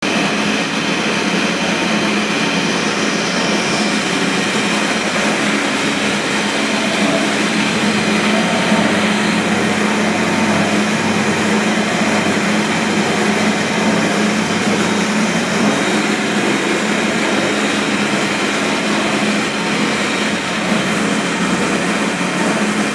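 Bakpia filling (kumbu) cooking machine running: a steady mechanical noise with a constant low hum, unchanging throughout.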